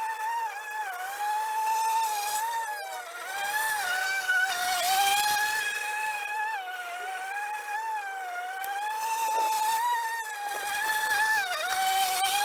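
EGO battery-powered electric lawn mower running, a steady high whine that wavers up and down in pitch.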